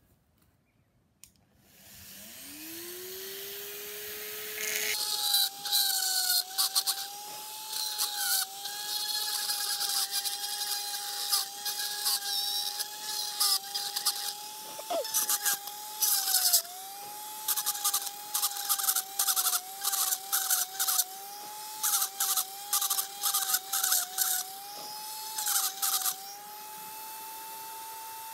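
Electric power drill spinning up with a rising whine about two seconds in, then running steadily while the bit bores down through a soft aerated concrete (AAC) block, with many short gritty grinding bursts as it bites into the block.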